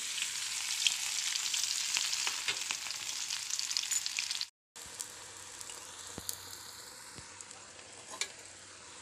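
Vegetable pieces frying in hot oil, a steady sizzle with scattered light ticks of a utensil stirring in the pan. The sizzle drops out abruptly about halfway through and comes back softer.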